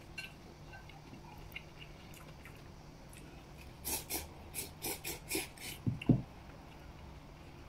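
A man slurping oil-splashed noodles: a quick run of short sucking slurps about four seconds in, with chewing around them. A single sharp thump just after the slurps is the loudest sound.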